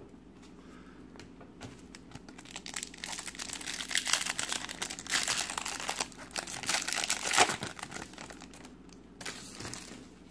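Foil wrapper of a 1998-99 Topps Finest basketball card pack being torn open and crinkled by hand, a dense crackling that lasts for about five seconds in the middle. It goes quieter near the end as the cards are slid out.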